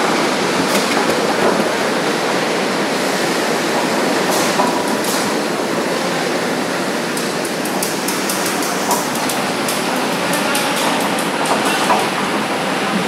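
240 kg double-arm dough mixer running, its two arms kneading a large batch of dough: a steady mechanical noise with scattered light clicks in the second half.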